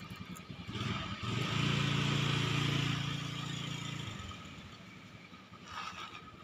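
A motor vehicle engine passing by. It swells about a second in, runs steadily for a couple of seconds, then fades away.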